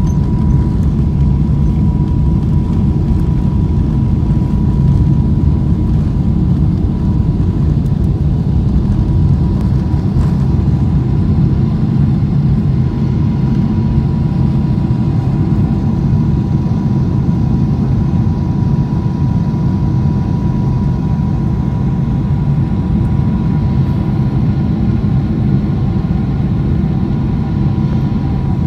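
Boeing 777-300 twin jet engines at takeoff thrust, heard from inside the cabin over the wing: a loud, steady deep rumble with a thin steady whine through the takeoff roll, liftoff and initial climb.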